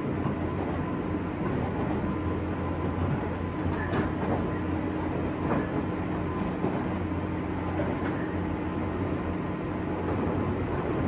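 JR West 201 series electric train heard from inside a motor car while running between stations. The noise of wheels on rails and running gear is steady, with a faint steady hum and a few light clicks in the middle.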